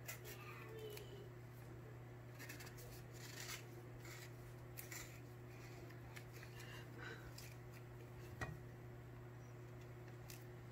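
Faint soft scraping and clicks of a kitchen knife cutting around an avocado and the fruit being worked apart by hand, with a single sharper knock about eight seconds in. A steady low hum runs underneath.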